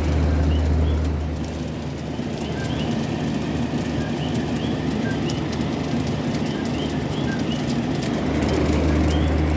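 Portable air conditioner running and cooling, with a steady low hum that swells in the first second or so and again near the end. Small birds chirp faintly throughout.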